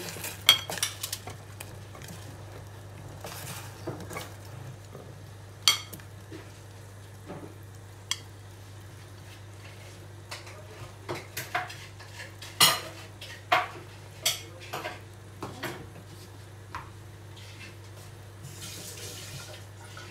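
Chunks of squash tipped off a plate into a stainless steel pot of hot water, with a quick run of knocks about the first second. After that come scattered clinks and knocks of kitchenware against metal, thickest around the middle, over a steady low hum.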